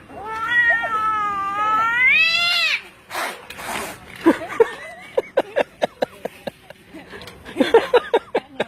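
A domestic cat yowling in one long, wavering call that rises in pitch at its end, followed by a short breathy noise and then a quick string of short, sharp squeaky calls.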